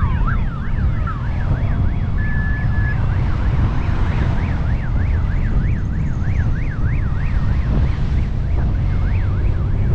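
An emergency-vehicle siren wailing in a fast up-and-down sweep, about two cycles a second, over heavy wind rumble on the microphone of a moving motorcycle.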